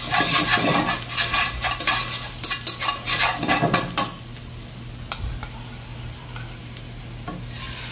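Sliced onion sizzling in oil in a nonstick frying pan, with metal chopsticks clicking and scraping against the pan as it is stirred for about four seconds. The sizzle then settles to a quieter hiss and grows louder again near the end as beaten egg goes into the pan.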